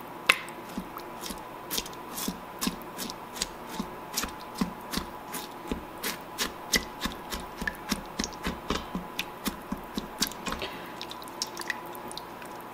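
Silicone spatula stirring broth in a stainless steel Instant Pot inner pot, knocking and scraping against the pot in quick repeated clicks, about three a second, as it breaks a lump of frozen tomato sauce into the liquid. The clicks fade out near the end.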